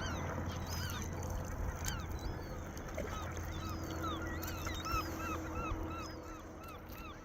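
A large colony of gulls calling, with many short overlapping cries at once. A steady low hum runs underneath.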